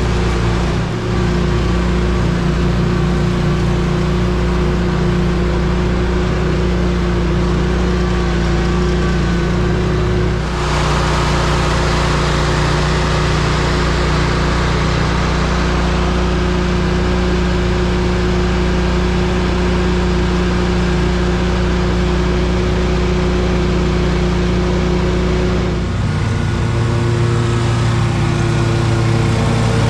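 Lawn mower engine running steadily under load. Its note shifts about ten seconds in and again near the end, as the throttle or load changes.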